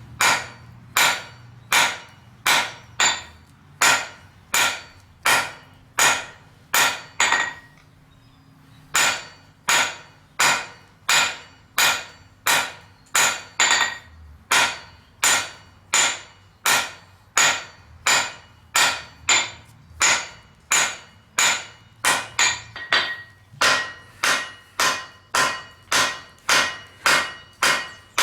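Blacksmith's hammer striking steel on an anvil in a steady rhythm, about three blows every two seconds, each with a short metallic ring. The hammering stops for about a second and a half roughly a third of the way in, then starts again.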